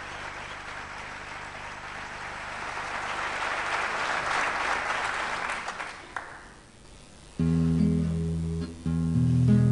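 Audience applauding, swelling and then dying away. About seven seconds in, a solo acoustic guitar starts playing the opening chords of a chamamé.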